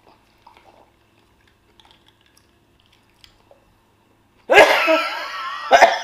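Faint chewing and small mouth clicks, then about four and a half seconds in a woman breaks into a sudden loud fit of harsh, strained coughing, with sharp cough bursts near the end.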